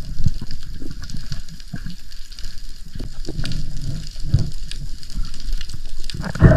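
Water crackling and clicking around a spearfisher's camera, with a few low thuds of moving water and a louder whoosh near the end.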